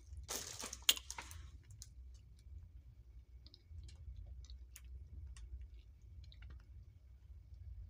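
Plastic food packets in a kitchen cupboard rustling and crinkling briefly as a hand moves them, with a sharper click about a second in. After that only scattered faint ticks over a low steady hum.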